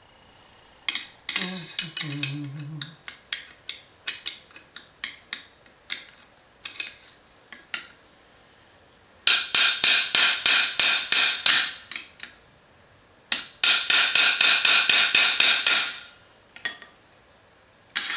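Hammer tapping a part of an Adams Arms gas piston kit into place on an AR-15, working it in until it sits flush. First come scattered single taps, then two fast runs of light, rapid taps, each lasting a couple of seconds.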